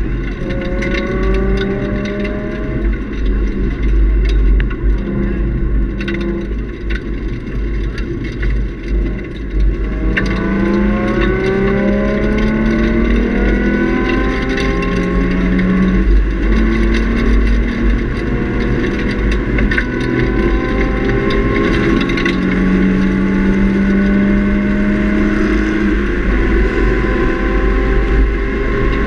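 Nissan 350Z's 3.5-litre V6 with a Nismo cat-back exhaust, heard from inside the cabin at track speed. It revs up in rising sweeps, eases off around six to ten seconds in, then pulls hard again from about ten seconds in, over a constant deep road and wind rumble.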